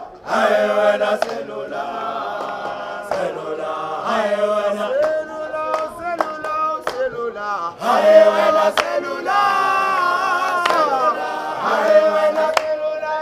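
A choir of mixed voices singing a church song, with long held notes.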